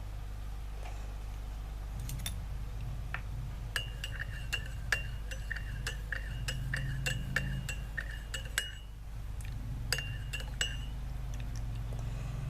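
A spoon stirring honey into a drink in a glass, clinking against the glass about twice a second, each clink leaving a short ring. The clinking starts about two seconds in and stops a couple of seconds before the end, over a steady low hum.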